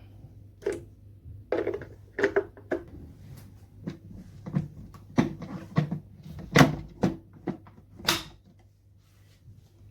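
Plastic parts of a cold-press slow juicer being handled and fitted together: a series of irregular knocks and clicks, the loudest a bit over six seconds in and again about eight seconds in.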